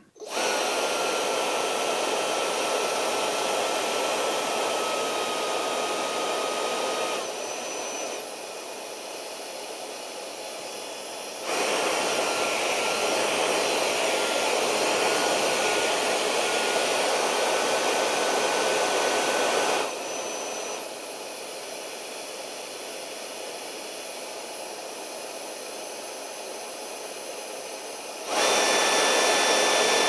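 Tineco MODA ONE hairdryer running: rushing air with a thin, steady motor whine. It drops to a quieter level and comes back up twice.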